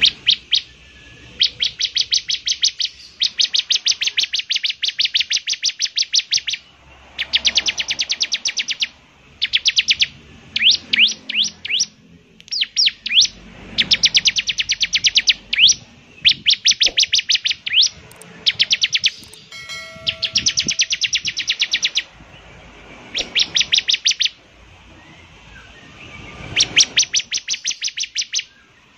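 Bar-winged prinia (ciblek) singing in full song: repeated bursts of rapid, sharp, high chattering notes, each burst lasting one to three seconds with short pauses between, some bursts made of quick upward-sweeping notes.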